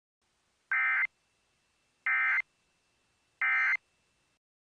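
Three short bursts of Emergency Alert System digital data tones, evenly spaced about 1.3 seconds apart: the end-of-message code that closes the alert.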